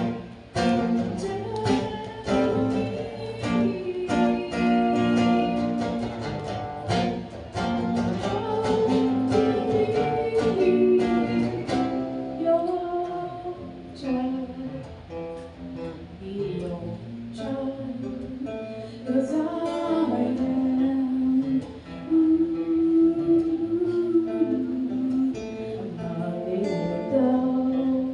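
Acoustic guitar strummed with singing over it. The strumming is dense for about the first twelve seconds, then thins out to sparser playing under long held notes.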